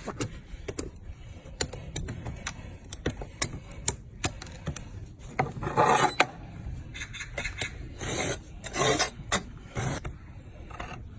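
A donkey's hoof being pared and scraped with a farrier's tool: a run of sharp clicks and small cuts, with louder rasping scrapes around the middle and again a couple of seconds later.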